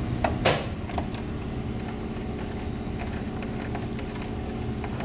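A sharp metal clack about half a second in, then faint small ticks of a screwdriver turning Torx screws into a door lock's metal trim, over a steady low hum.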